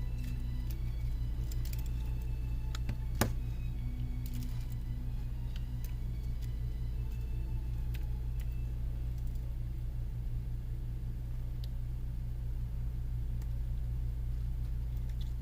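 Small clicks and taps of repair tools on the parts of an iPhone 6 Plus being reassembled, with one sharper click about three seconds in, over a steady low hum.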